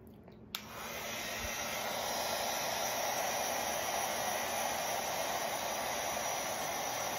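Craft embossing heat gun switched on with a click about half a second in, then blowing a steady stream of hot air as its fan spins up over the next second. It is heating embossing powder to melt it.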